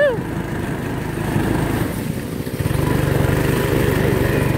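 Small go-kart engine running under way, quieter at first, then louder and steady from about two and a half seconds in.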